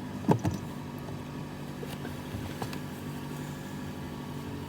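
2011 Nissan Rogue's 2.5-litre four-cylinder engine idling with a steady hum. There are a couple of short knocks about half a second in.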